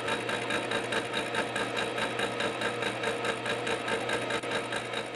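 Milling machine cutting gear teeth into a small 1045 steel gear blank with a disc gear cutter, a fast, even ticking of the cutter teeth over a steady motor hum.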